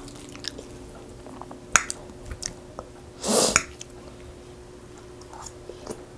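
Chewing and mouth sounds of someone eating soft, sauced carne asada fries, with a few sharp clicks of a fork against the glass bowl and one louder noisy burst about three seconds in.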